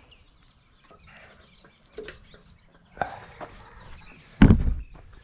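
Scattered knocks and clinks of hand work on a log splitter's hydraulic cylinder, with a heavy thump about four and a half seconds in.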